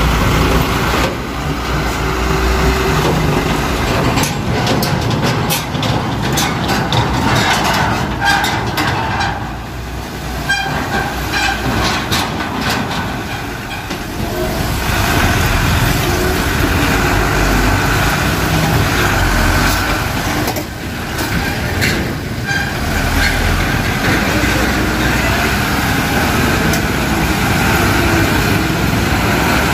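Heavy diesel trucks, a Fuso FN series dump truck among them, passing over a railway level crossing. The engines rumble steadily, and clusters of knocks come as the wheels cross the rails, about four seconds in, again near the middle, and again about twenty seconds in.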